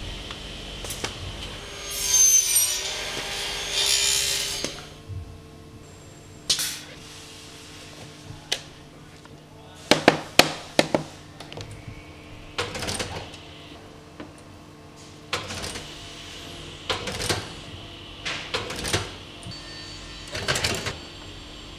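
Workshop tool noise from aluminium case assembly. About two seconds in there are a few seconds of loud tool noise, then a string of separate sharp clicks and knocks as parts are pressed and fitted by hand and by a setting machine. A steady hum runs underneath.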